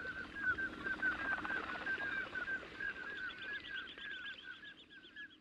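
A flock of common scoters calling: many short piping whistles, several a second and overlapping, over a low steady hum, fading out near the end.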